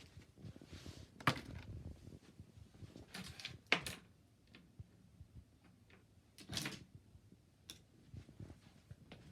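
Small gift items and packaging being handled on a table: a few faint clacks and short rustles, the loudest about a second in and again near four seconds.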